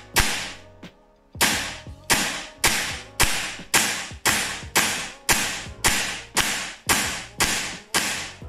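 KSC M93R2 gas blowback airsoft pistol fired on semi-auto: a steady string of about fourteen sharp shots, roughly two a second, after a one-second pause near the start.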